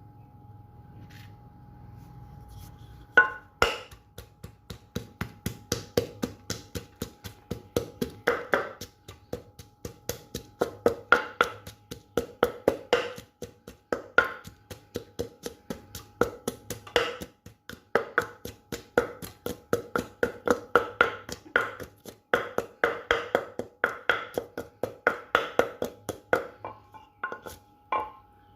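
Pestle pounding in a mortar, crushing fresh and dried chilies: a steady run of sharp knocks, about two to three a second, starting about three seconds in and stopping near the end.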